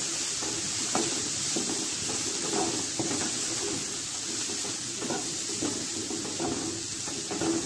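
A wooden spatula stirring and scraping grated cauliflower and spices around a hot pan, with a few short scrapes and taps against the pan, over a steady frying sizzle.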